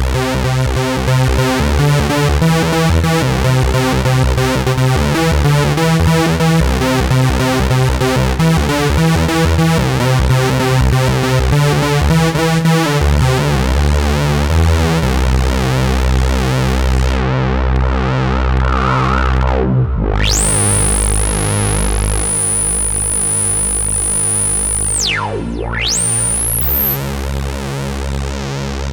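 Ad-vantage 03m monophonic semi-modular analog synthesizer playing a fast repeating sequenced bass pattern, which shifts to a deeper pulsing line about halfway through. About 20 s in, a high whistling tone joins and holds steady, then sweeps sharply down and back up near the end.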